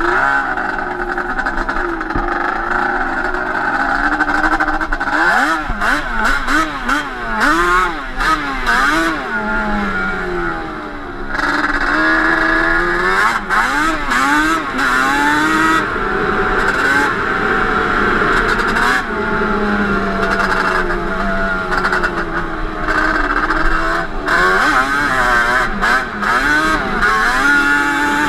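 Yamaha Banshee 350 parallel-twin two-stroke engine, with bored cylinders and Toomey T5 expansion-chamber pipes, running under load as the quad is ridden. Its pitch climbs and falls again and again with the throttle, many times through the stretch.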